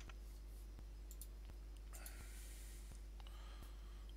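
Faint room tone: a steady low mains hum with a soft tick repeating a little more often than once a second, and a few faint clicks.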